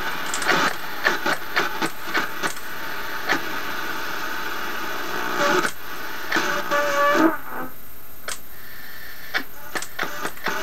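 Grundig Satellit 800 receiver being tuned through the CB band: hiss and static broken by many sharp clicks and crackles as the frequency changes. There is a brief pitched tone about seven seconds in, and the noise thins out about a second later.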